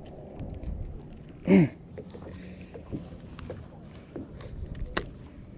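Scattered knocks and clicks of handling in a fishing boat, over a low rumble. About a second and a half in, one short, loud voiced exclamation with a falling pitch.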